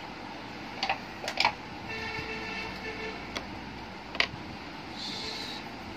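Several sharp clicks of oil pastel sticks being handled, set down and picked up, over a steady background hum. About two seconds in, a tone like a distant horn sounds for about a second.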